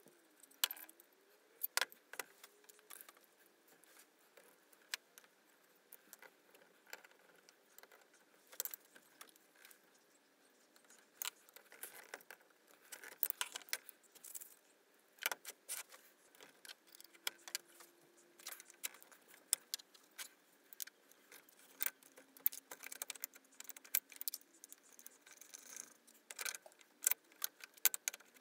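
Irregular metal clicks and clinks of a Stanley Bailey bench plane being handled and put back together: the steel blade, cap iron, screwdriver and cast-iron body knocking against one another.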